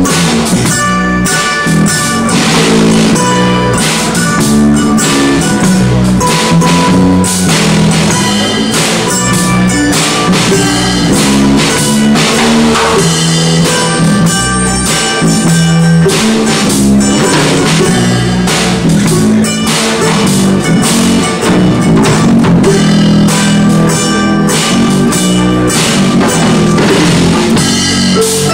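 Live band playing an instrumental passage with a steady beat: drum kit with cymbals, electric bass and strummed ukulele.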